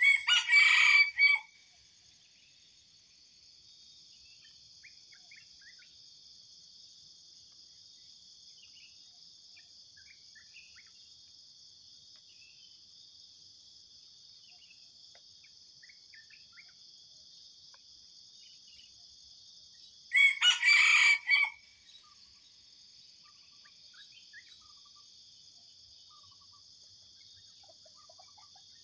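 Junglefowl rooster crowing twice: short crows of about a second and a half, about twenty seconds apart. A steady high-pitched insect drone runs underneath.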